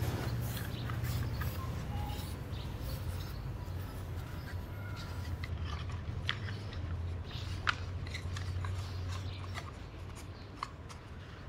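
Sheets of joss paper being folded and rolled by hand, with soft rustles and small crackles, over a steady low hum.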